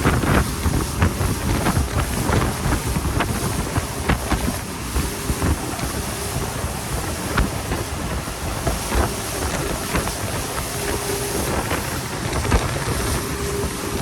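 Motorboat under way: its engine drones steadily under a dense rush of wind buffeting the microphone, with irregular short knocks throughout.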